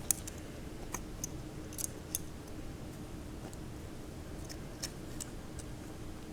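Scattered light metallic clicks from a loosely pinned vintage Italian switchblade as it is handled and folded closed.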